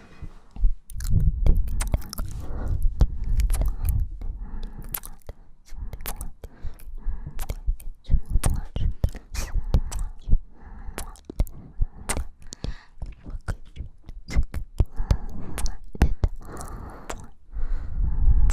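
Close-miked ASMR mouth sounds: many soft kisses and lip smacks, with breathing onto the microphone between them.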